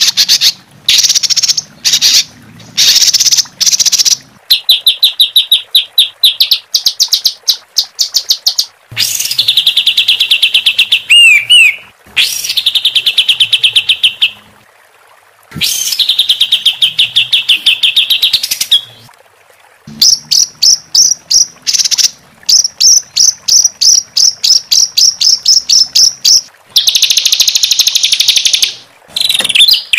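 Loud songbird song of harsh, rapid repeated 'shot' notes and fast rolling trills, the kind of phrases compiled as masteran for training caged songbirds. It comes in runs of a few seconds with short breaks between, some runs a quick staccato of several notes a second, others a continuous buzzy roll.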